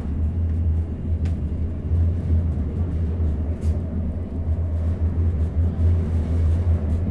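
Interior running noise of a Sheffield Class 399 Citylink tram-train under way: a steady low rumble from the running gear, heard from inside the passenger saloon.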